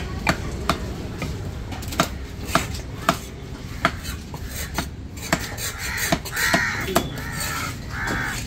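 Large fish-cutting knife chopping fish flesh into cubes on a wooden log block: sharp knocks about two a second. Crows cawing several times from about six seconds in.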